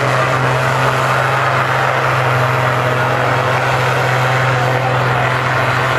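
Diesel engine of a Case IH farm tractor running flat out under heavy load while pulling a weight sled, a loud, steady drone that holds one pitch.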